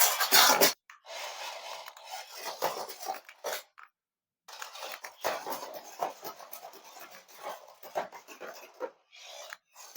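Irregular rustling and scraping of things being handled, in short bursts with brief silent gaps about a second in and around four seconds.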